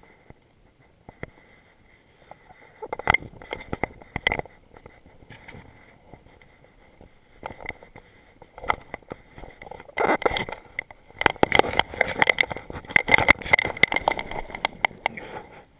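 Footsteps scraping and knocking on river stones and splashing in shallow water as a hooked Atlantic salmon is led in to be landed. A short cluster of knocks and scrapes comes about three seconds in, and a longer, louder stretch of scraping and splashing runs from about ten seconds in until just before the end.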